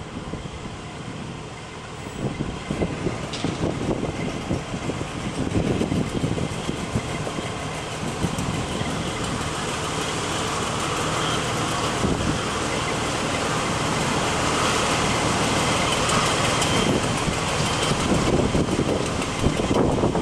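Fire department tower ladder truck's diesel engine running steadily, getting louder past the middle, with irregular low rumbles underneath.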